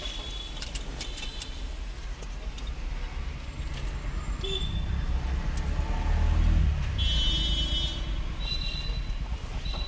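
Low rumble of road traffic, swelling about five seconds in and easing after seven, with light clicks and a few brief high-pitched tones on top.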